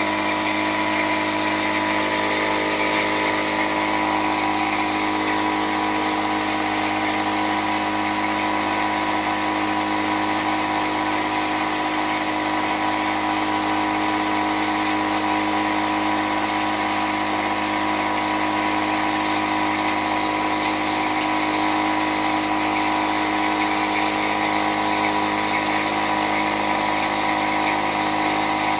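Loud dishwasher running steadily, a mechanical whine of several held tones over a hiss with no breaks or changes.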